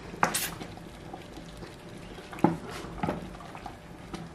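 A pot of barley soup simmering, with liquid sounds and a few sharp clinks and splashes from a ladle being dipped and knocked against the pot.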